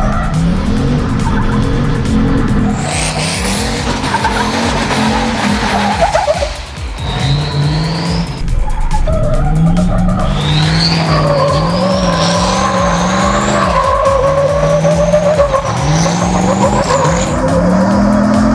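Turbocharged LS V8 of a Chevy Silverado prerunner revving hard, its pitch rising and falling again and again with throttle and shifts, under tyre squeal from the truck sliding. High whistling tones rise in pitch several times over the engine, and there is a brief lift in the engine note about a third of the way in.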